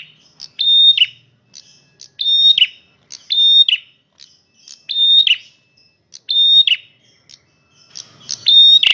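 Male prenjak merah singing loudly: a high-pitched phrase repeated about every second and a half, each a held whistled note that drops sharply at its end, with short higher notes between.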